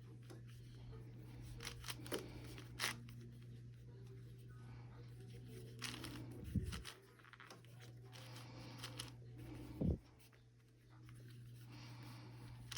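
Plastic Rubik's cube being twisted by hand: irregular clicks and rattles of the layers turning, with two dull thumps partway through over a steady low hum.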